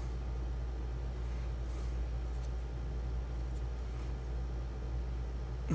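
A steady low electrical hum under faint clicks and scrapes of fingers handling a small circuit board while pressing a headphone jack's pins into it.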